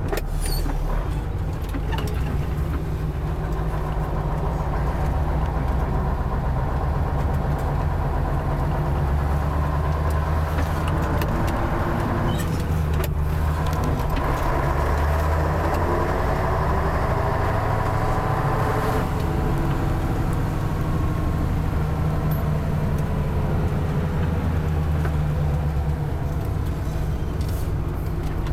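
A V8 truck engine heard from inside the cab while driving, pulling steadily. Its note rises and falls, with a short break about halfway through.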